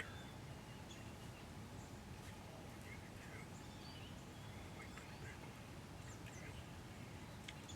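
Faint, scattered chirps and short calls of birds over a steady low outdoor rumble.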